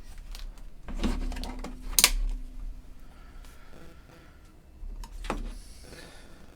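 Handling noise on a workbench: a few sharp clicks and knocks, the loudest about two seconds in, as small parts and tools are picked up and set down.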